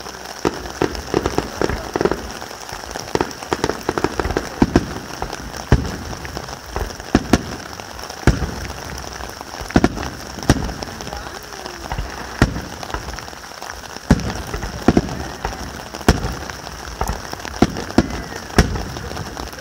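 Fireworks display: aerial shells bursting with sharp bangs. A dense run of cracks fills the first few seconds, then separate bangs come every second or two.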